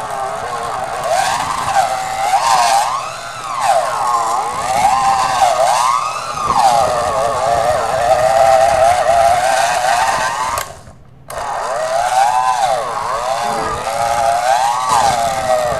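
Electric hand mixer running on its lowest speed, its beaters churning a thick cream cheese and whipped-topping mixture. The motor whine wavers up and down in pitch and cuts out briefly about eleven seconds in.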